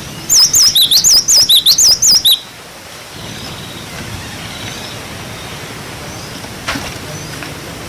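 Cinereous tit (glatik batu) singing: a quick run of high, wavering whistled notes lasting about two seconds, after which only faint background hiss remains.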